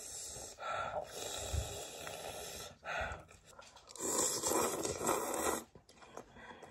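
Person eating spicy ramen noodles: noisy slurps and breaths in long rushes, the loudest about four seconds in.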